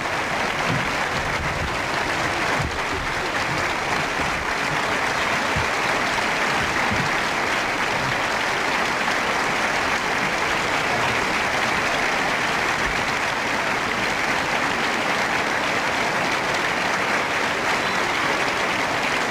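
Large audience applauding steadily in one long, unbroken ovation.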